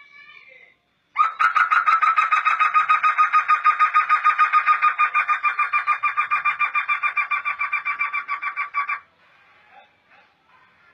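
Black laughingthrush (poksay hitam) singing a long, even series of repeated notes, about five a second. The series starts about a second in and stops after about eight seconds.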